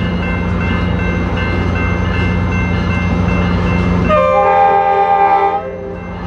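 A pair of F40PH diesel locomotives running steadily as they pull a passenger train in, their EMD 16-cylinder two-stroke diesels droning. About four seconds in, an air horn sounds one blast of several notes at once, lasting about a second and a half.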